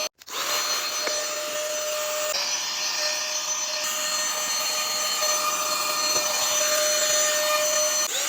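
Mini handheld vacuum cleaner running: a steady high whine over rushing air. It cuts out for an instant at the start and spins straight back up, with a brief dip and spin-up again about two and a half seconds in.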